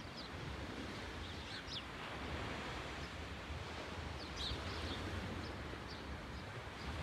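Steady outdoor wind noise with a low rumble, and small birds chirping briefly several times.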